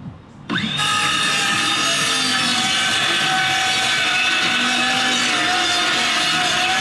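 Handheld circular saw spins up with a rising whine about half a second in, then runs steadily, its blade cutting through a scrap timber board.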